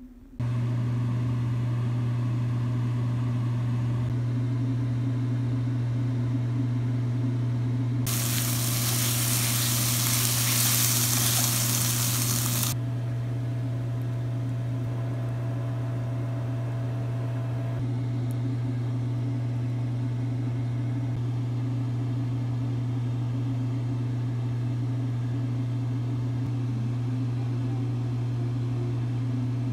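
A steady low machine hum with a few overtones runs throughout. About eight seconds in, a loud hiss joins it for roughly five seconds, then cuts off.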